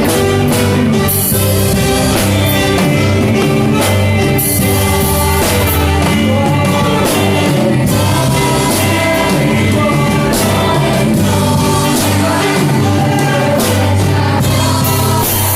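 Live gospel music: a church orchestra with strings and drums playing, with a choir of voices singing along.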